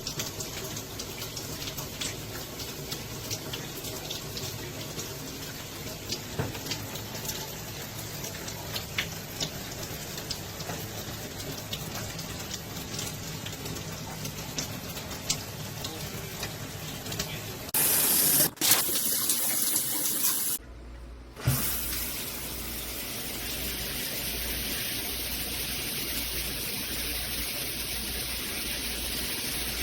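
Water spraying steadily from a SparkPod filtered shower head. About eighteen seconds in it turns louder for a couple of seconds, then drops out briefly before running on evenly.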